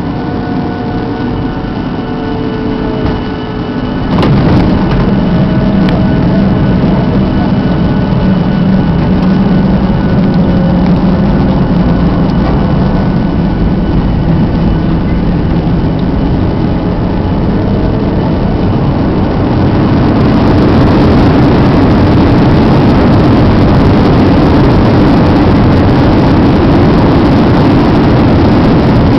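Jet airliner landing, heard from the cabin over the wing: a sharp knock about four seconds in as it touches down, then a loud, steady rumble of wheels, airflow and engines on the runway. The noise swells further about twenty seconds in.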